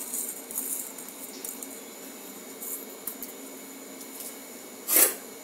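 Steady low hiss of a gas burner heating a steel pot of milk, with a few faint scratchy clicks. One sharp knock comes about five seconds in.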